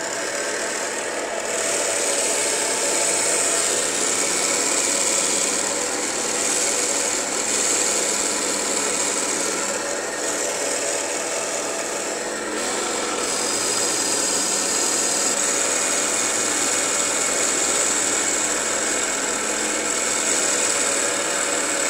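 Water-cooled glass band saw running and cutting through a sheet of stained glass: a steady, loud motor sound with a high hiss from the blade grinding through the wet glass.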